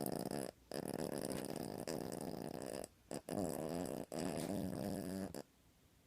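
A sleeping puppy snoring, in a string of long snoring breaths of a second or two each with brief gaps between them, falling quiet a little after five seconds in.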